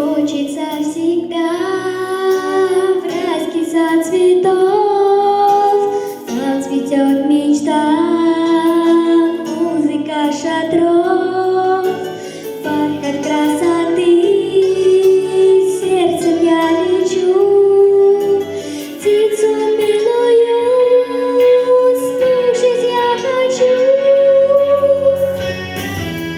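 Music: the intro of a pop song, with a backing track under a gliding, sustained melody line that sounds like a girl's voice singing without words.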